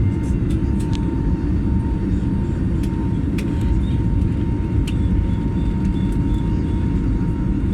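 Airplane climbing after takeoff: a steady, heavy low rumble of engines and rushing air with a faint steady high tone over it, and a few small clicks.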